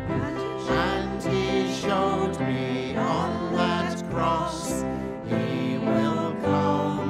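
Christian worship song: voices singing a melody over instrumental accompaniment.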